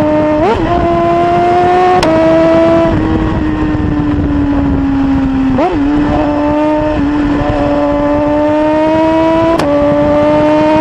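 Superbike engine running hard at high revs, recorded onboard with wind rush. The engine note climbs slowly. It drops in a sudden step with a sharp click about two seconds in and again near the end, as at gear changes, and it kinks briefly in pitch a little past halfway.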